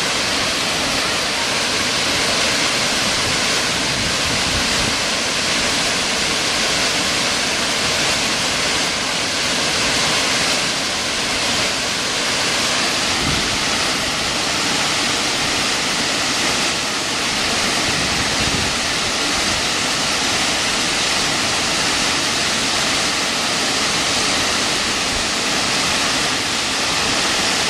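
Aasleagh Falls, a broad waterfall, pouring over a rock ledge into a churning pool: a loud, steady rush of falling water.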